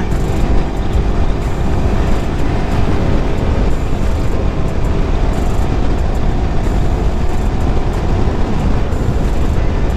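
Wind rushing loudly over the microphone of a Yamaha R15 V4 motorcycle riding at speed, with its 155 cc single-cylinder engine running at a steady cruise underneath.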